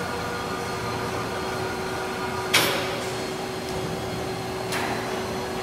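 Steady hall hum with faint steady tones, broken by a sharp knock about two and a half seconds in and a softer knock about a second before the end.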